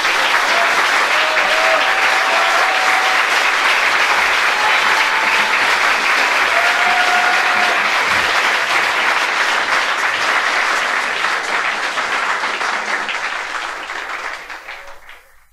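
Live audience applauding after a comedian signs off at the end of his set. The clapping is loud and steady, then dies away over the last few seconds.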